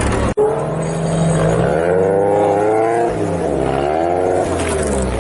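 The Suzuki Samurai's 1.8-litre BMW M42 four-cylinder engine revving up and down as it crawls through an off-road section. A sudden break about a third of a second in cuts off the steady engine note that came before.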